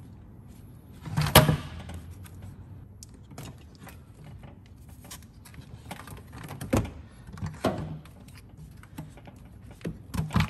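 Scattered clicks and knocks of hands working in an engine bay, unplugging wiring connectors and shifting the intake manifold. The loudest is a sharp knock about a second and a half in, with more near seven seconds and just before the end.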